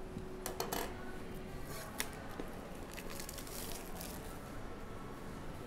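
Plastic shrink wrap being torn and crinkled off a sealed trading-card hobby box, with a few sharp clicks and taps from handling the box.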